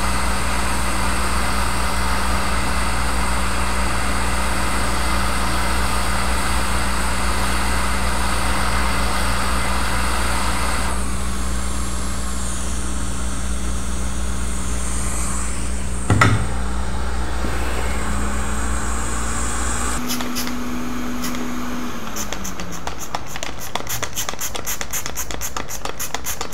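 Hot air rework station blowing a steady hiss over a low hum while a chip is reflowed on a logic board. The airflow eases about eleven seconds in. There is a single knock a few seconds later, a pitched tone that rises, holds and falls around twenty seconds in, and a rapid run of clicks near the end.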